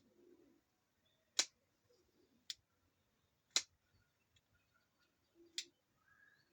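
Four sharp clicks of hard parts being handled, spaced one to two seconds apart.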